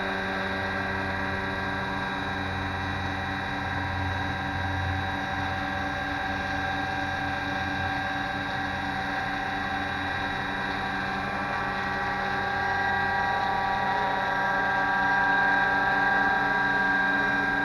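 Scale AH-6 Little Bird RC helicopter hovering, its motor and rotors giving a steady multi-toned whine. It grows a little louder and higher near the end.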